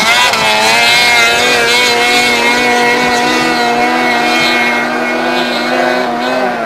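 Snowmobile engine held at high revs under load as it climbs a steep snow slope, a steady whining engine note that wavers briefly at the start and then holds its pitch.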